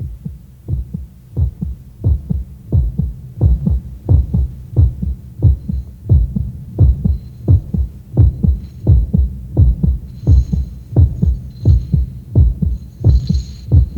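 Heartbeat sound effect: a steady, even rhythm of deep low thumps that swells in over the first couple of seconds and then holds loud.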